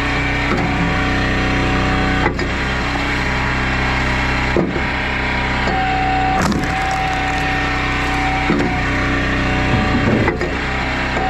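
Engine running steadily while a hydraulic log splitter works, with cracks of wood splitting about every two seconds. A steady whine comes in twice.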